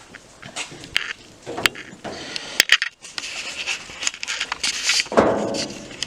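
Handling noise: scattered clicks, rustles and knocks, with one louder thump about five seconds in.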